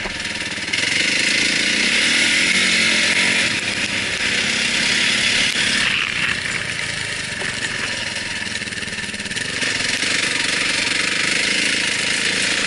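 Enduro dirt bike engine running under throttle while riding over rough ground, with a loud rushing noise over it that gets louder about a second in.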